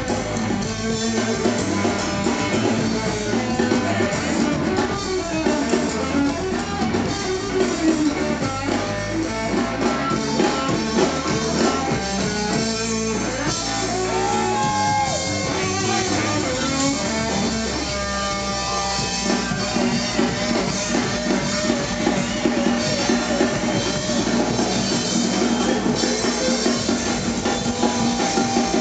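A live blues-rock band plays: electric guitar leads over bass guitar and drum kit. About halfway through, a held guitar note bends up and back down.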